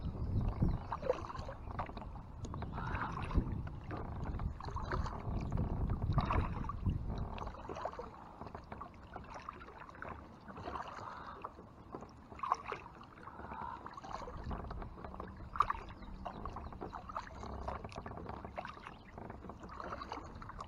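Kayak paddle working through river water: irregular splashes and drips from the blade, with a low rumble in the first several seconds that fades about eight seconds in.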